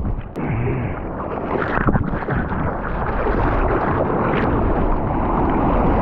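Churning whitewater splashing and rushing around an action camera at the water line, dull and muffled, with a brief dip just after the start as the camera breaks the surface.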